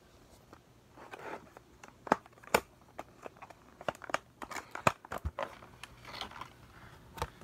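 Scattered sharp plastic clicks and short rustles from handling a clear compartmented plastic tackle box of soft-plastic fishing grubs.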